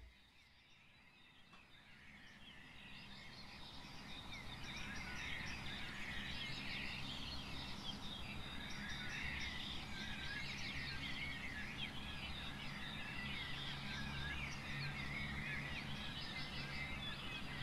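Many birds singing together in a dense chorus of chirps and short whistles, fading in over the first few seconds and then holding steady, over a low steady hum.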